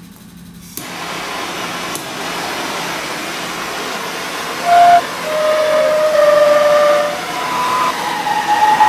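Hanging glass rods of a homemade glass instrument sounding long, sustained whistle-like tones at several pitches, one after another and overlapping, starting about five seconds in. A steady hiss runs underneath from about a second in.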